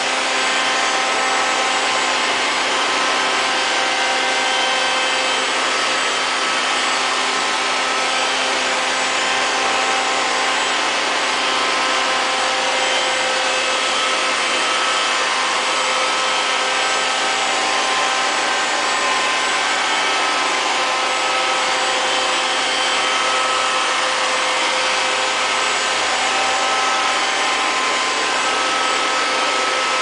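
Liectroux LL-305 robot vacuum cleaner running as it moves across a tiled floor: a steady whirring hiss of its suction motor with several steady whining tones.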